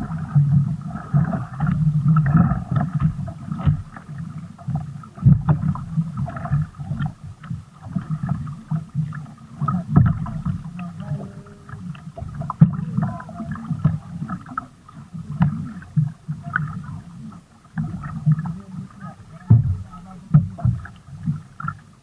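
A double-bladed paddle dipping and pulling through the water, driving a small wooden outrigger canoe, with water sloshing and slapping around the hull and a few sharp knocks.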